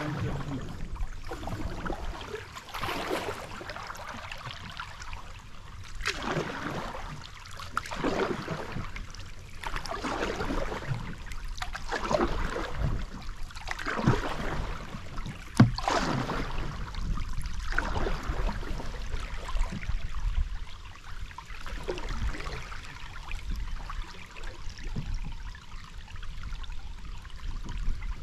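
Canoe paddle strokes in calm water, a swish and splash about every two seconds, softer in the later part. One sharp knock comes about halfway through.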